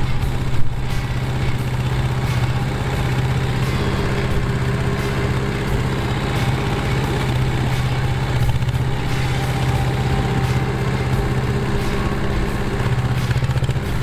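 Yanmar SV05 mini excavator's engine running steadily with an even low hum.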